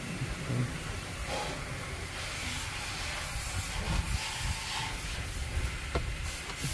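Steady hiss of background noise, with a few light clicks near the end from a Phillips screwdriver working a sun visor's mounting screw.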